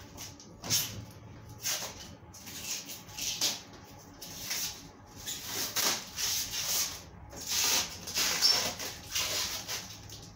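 Clear protective plastic film being pulled and peeled off a new stainless-steel refrigerator door, crinkling and rustling in a string of irregular pulls.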